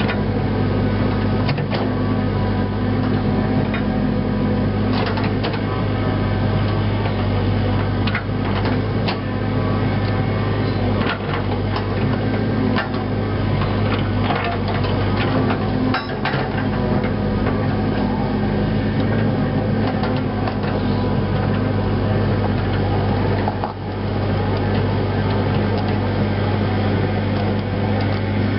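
Cat 307C excavator's diesel engine running steadily, with frequent short knocks as the machine works the dirt pile.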